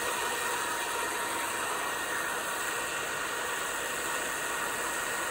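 TOS FA4V vertical milling machine spindle running free at its top speed of 1400 rpm, not cutting. A steady mechanical whir with a steady high whine through it.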